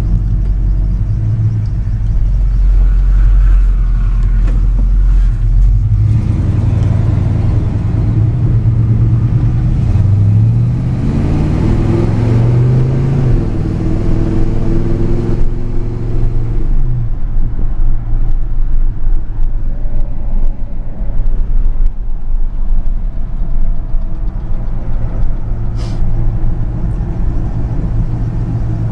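1970 Chevrolet C10 pickup's engine and road noise heard from inside the cab while driving. The engine speeds up about ten seconds in, holds for a few seconds, then eases back off.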